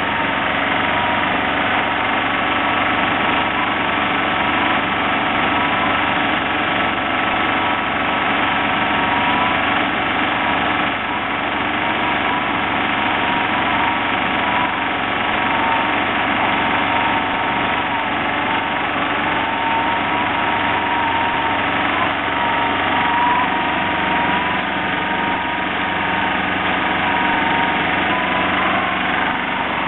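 Engine of the stucco-spraying equipment running steadily without a break, with a faint wavering whine over it.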